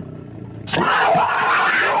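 Cougar call that starts suddenly about two-thirds of a second in, after a brief lull, and carries on loud.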